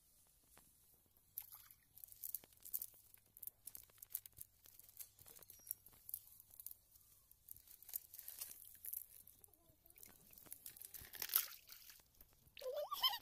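Nylon cast net mesh rustling and crackling as it is handled and fish are picked out of it, in faint, irregular bursts that are busiest in the second half.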